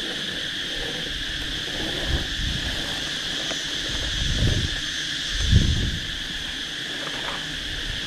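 Steady, high-pitched drone of insects. Two low muffled thumps come past the middle; the second is the loudest.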